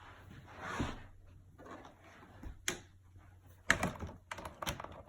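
Hard plastic parts rustling and clicking as clips are pushed into a plastic Beyblade battle stadium, with a few sharp separate clicks in the second half.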